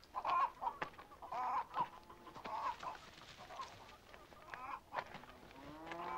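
Chickens clucking in short calls, one every half second or so, with a few sharp clicks between them. Near the end a long, steady pitched sound sets in.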